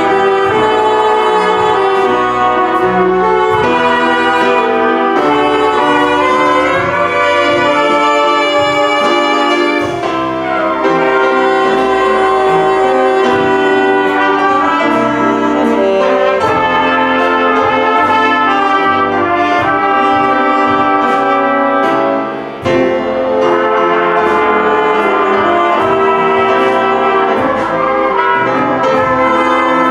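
A brass-led ensemble of trumpets, French horns and saxophone playing a melody together over a full band accompaniment, with a brief drop in loudness about three-quarters of the way through.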